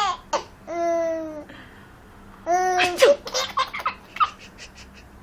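Baby laughing: drawn-out pitched laughs, then a quick run of short giggles a little past the middle.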